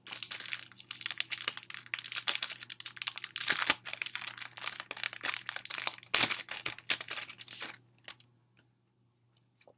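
Plastic album packaging crinkling and rustling as it is handled, with dense crackles and small clicks that stop about eight seconds in.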